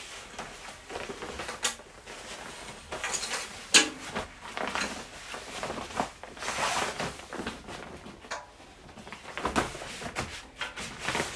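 Foam-padded cordura shooting mat being unrolled and opened out by hand: rustling and flapping of the fabric, with a few sharp clicks and knocks, the loudest about four seconds in.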